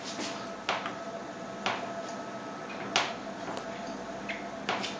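Four short, sharp clicks at uneven intervals over a faint steady hum.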